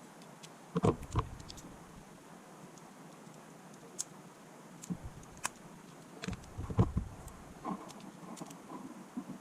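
Scattered small clicks, taps and knocks of hand tools and phone parts being handled on a repair bench. The loudest cluster of knocks comes about a second in and another near seven seconds, with light ticks between.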